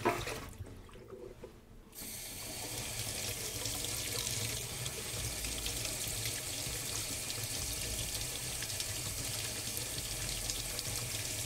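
Kitchen tap running onto a new water-filter cartridge held under the stream, water splashing into a stainless-steel sink. The cartridge is being flushed after its ten-minute soak. The flow comes on about two seconds in and then runs steadily.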